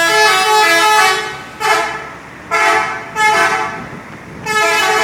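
Telolet musical bus horn playing its multi-note tune in a run of about five loud blasts. Each blast steps between several pitches, with short pauses between blasts.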